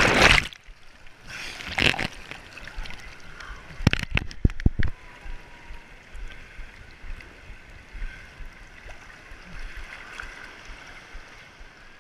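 Water-slide splash-down into a pool: a rush of water and splash that cuts off about half a second in as it goes under, then muffled bubbling, a few sharp slaps of water about four seconds in, and gentle water lapping for the rest.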